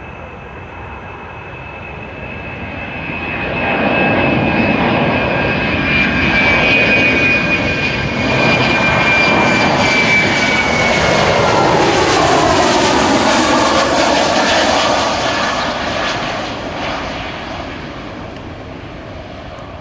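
Boeing 737-300's CFM56-3 turbofan engines as the jet passes by: a jet rush with a high whine that falls slightly in pitch. It swells to loud about four seconds in and fades away after about fifteen seconds.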